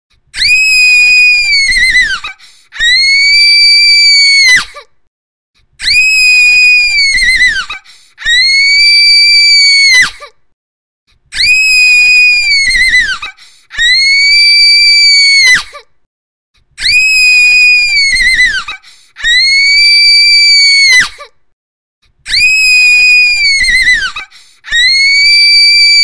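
A female scream, high-pitched and held for about two seconds before falling away at the end. The same scream repeats over and over in pairs, ten times in all.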